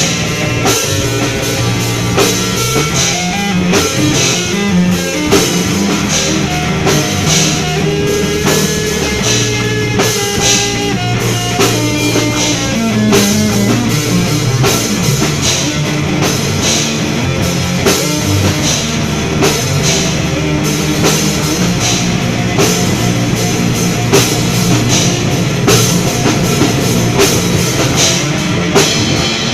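Rock music with a driving drum kit beat and guitar.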